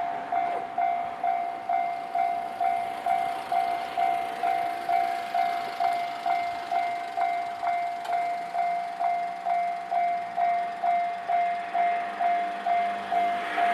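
Japanese railway level-crossing warning bell clanging steadily, about two strikes a second: the signal that the crossing is closing for an approaching train. A low steady hum joins about two-thirds of the way through.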